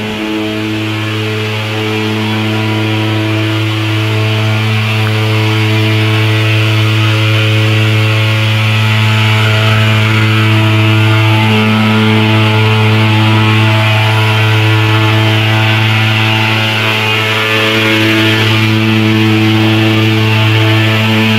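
Thermal fogging machine's pulse-jet engine running with a steady, loud buzz and a hiss over it.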